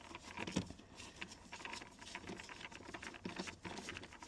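Light, irregular clicking and scraping of a hand tool turning out a rusted screw from plastic interior trim.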